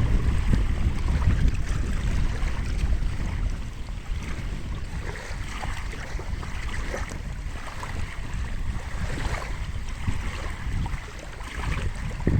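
Wind buffeting the microphone: a heavy low rumble over a steady rushing hiss, easing a little after about four seconds.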